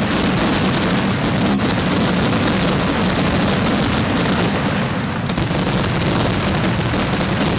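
Dense, continuous fireworks barrage: rapid crackling and bangs run together into one unbroken din, easing very briefly about two-thirds of the way through.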